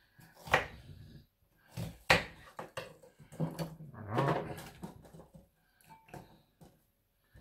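Kitchen knife cutting garlic cloves on a wooden cutting board: two sharp knocks of the blade on the board, about half a second and two seconds in, with a short low murmur of a voice in between.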